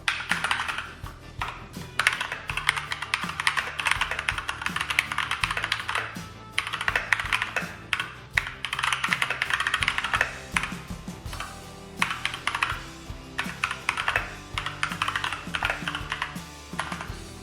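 Fast typing on a Keychron K2 mechanical keyboard: rapid key clacks in runs of a few seconds broken by short pauses.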